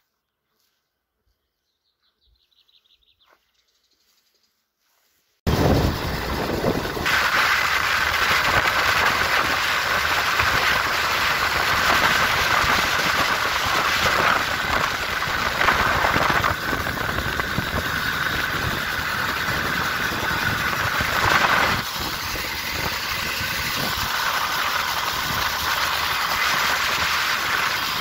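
Near silence with a faint chirp for about five seconds, then the loud, steady engine and wind noise of a vehicle driving along a road cuts in suddenly.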